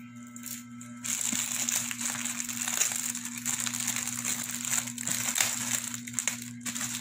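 Shiny silver gift wrap crinkling and tearing as it is pulled off a box by hand, starting about a second in, over a steady low hum.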